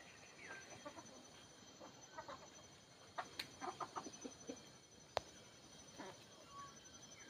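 Village chickens clucking softly in short scattered calls, bunched together around the middle, with one sharp click about five seconds in.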